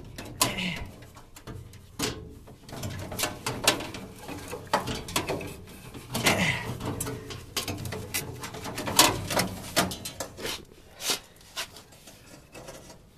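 Irregular clicks, knocks and scraping of a washable furnace filter being handled and worked into the furnace's filter slot.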